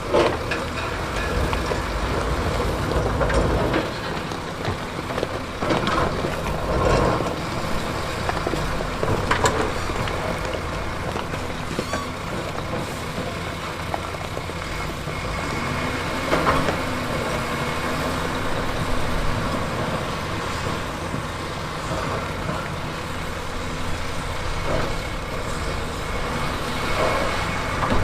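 Heavy diesel earthmoving machinery working: a steady engine rumble with scattered clanks and knocks, and the engine pitch wavering briefly past the middle.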